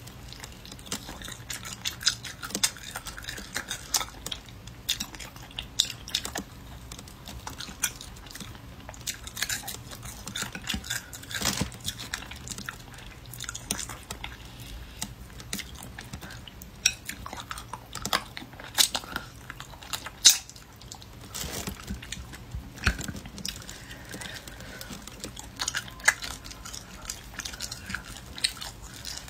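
Close-miked chewing and biting of tough, dried-out spicy braised meat on the bone, with sharp crunchy clicks throughout, the loudest about 11 and 20 seconds in.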